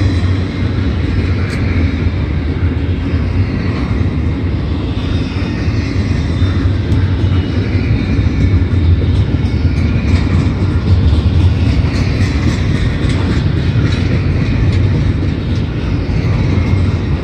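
Double-stack intermodal freight cars of a CSX train rolling past at speed: a steady, loud rumble of steel wheels on rail with scattered light clicks.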